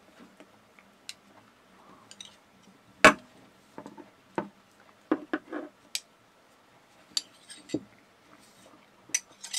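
Scattered clicks, clinks and knocks of metal splicing fids being handled against each other and the wooden tabletop, with the loudest knock about three seconds in and a quick cluster of clicks around five to six seconds.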